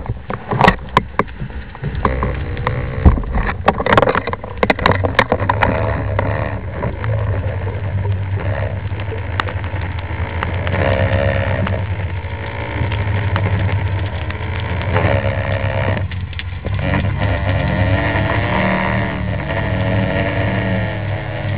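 A boat motor heard through the water: a steady low drone with a higher whine that wavers up and down. Sharp clicks and knocks come in the first few seconds.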